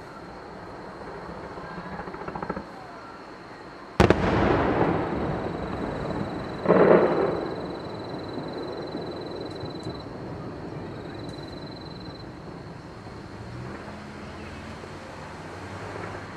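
Distant aerial fireworks shells bursting: a sharp bang about four seconds in that rolls on and fades over a couple of seconds, then a second, duller burst a few seconds later that also dies away.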